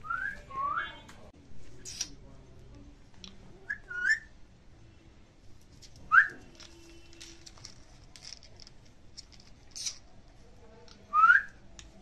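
Indian ringneck parakeet giving short, rising whistles, a few spaced apart, the loudest about six seconds in and again near the end, with a few faint sharp chirps between.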